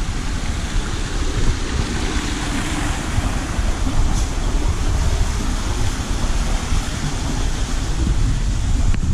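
Wind buffeting the microphone of a moving camera: a loud, steady rushing rumble, deepest in the low end, with a hiss above it.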